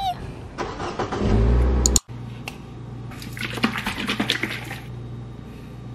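Liquid poured from a bottle into a drinking glass, splashing and glugging for about a second midway, over a low steady hum. Before it comes a rumbling noise that cuts off abruptly about two seconds in.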